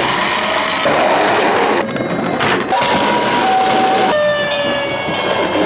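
Emergency-vehicle siren sounds over a loud, steady rushing noise, switching abruptly every second or so. Near the middle a two-tone ambulance siren steps from a high note to a lower one.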